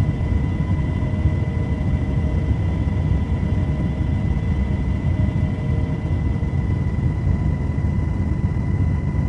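Helicopter in flight heard from inside the cabin: a loud, steady low rumble with a thin steady whine above it.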